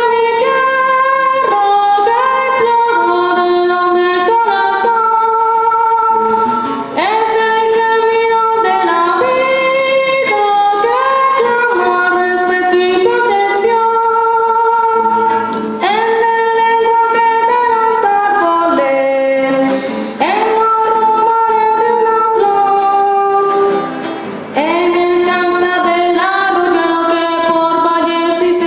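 A woman singing a Colombian sanjuanero melody. She holds notes and slides up into them, pausing briefly for breath between phrases.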